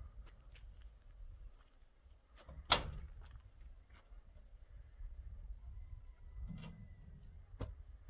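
A cricket chirping steadily in short, high, even pulses, about four a second. A sharp knock sounds about three seconds in, and a lighter one near the end.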